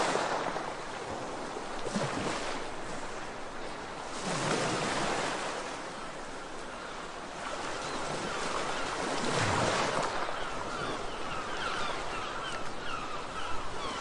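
Sea waves washing in and out, surging every few seconds. A run of quick high chirps joins in over the second half.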